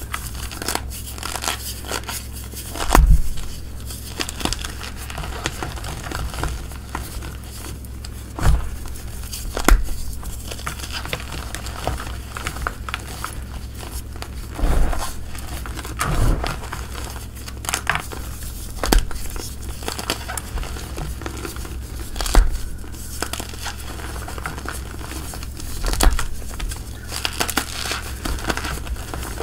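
Blocks of gym chalk crushed and crumbled between bare hands: irregular dry crunching and crackling, with several louder crunches as chunks give way.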